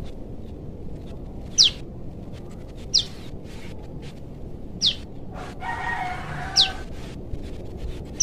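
Young prenjak lumut giving short, high calls that sweep downward, five in a row about one and a half to two seconds apart: a juvenile calling for its parent. A rooster crows once about five and a half seconds in.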